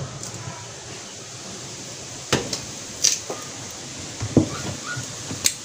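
Kitchenware being handled: a few scattered knocks and clatters of a plastic tub and a metal cooking pot as chopped ingredients are put into the pot, over a steady background hiss.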